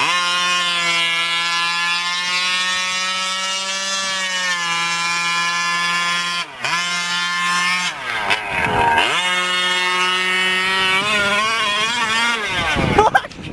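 Two-stroke petrol engine of a Losi 5ive-T 1/5-scale RC truck running at high, steady revs. The revs drop sharply about six and a half seconds in and again around eight to nine seconds, then rise and fall unevenly near the end.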